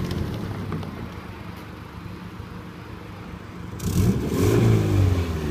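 Subaru Forester's flat-four engine running quietly, then revving up sharply about four seconds in, its pitch rising, along with a rush of noise, as the car strains to drag a boat on a long rope.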